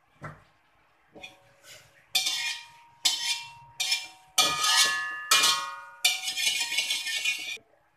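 A spatula scraping in repeated strokes across the inside of an empty, dry metal wok, with a ringing metallic tone under each scrape. The strokes start faint, turn loud after about two seconds, and the last one is the longest.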